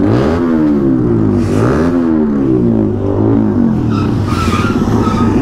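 Motorcycle engine revving, its pitch swooping up and down again and again.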